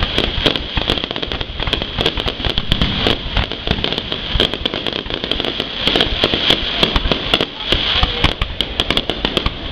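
Fireworks display going off without a pause: a dense, continuous run of bangs and crackles.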